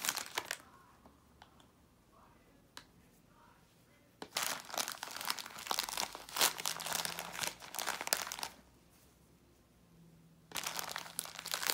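A plastic snack bag crinkling as polyester fibrefill stuffing is pushed into it by hand, in three bouts separated by quiet pauses of a few seconds.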